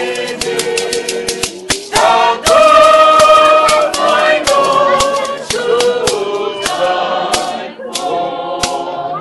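A mixed group of men's and women's voices singing together unaccompanied, marked by the sharp rattling strokes of a bead-netted gourd shaker (shekere).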